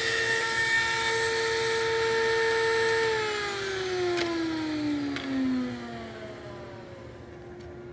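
Table-mounted router with a rabbeting bit running at full speed as a walnut panel is fed past it. It is switched off about three seconds in, and its whine falls steadily in pitch as the bit spins down, with a couple of light knocks along the way.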